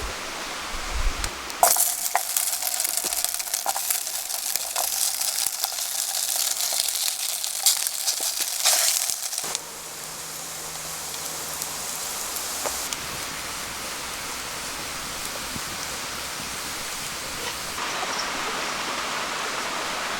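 Food frying in a hot pan: a loud sizzle with many small crackles and light metal clinks, starting about two seconds in and cutting off suddenly at about nine and a half seconds. A quieter, steady hiss follows.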